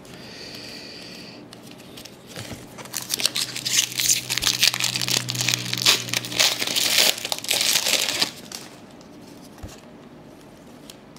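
Foil wrapper of a trading-card pack being torn open and crinkled. A dense run of crackling starts about two seconds in and stops about eight seconds in.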